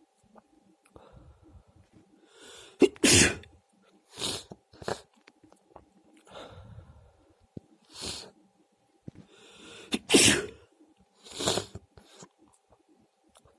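A run of repeated sneezes, about seven in all, a second or two apart, with the two loudest a few seconds in and about ten seconds in.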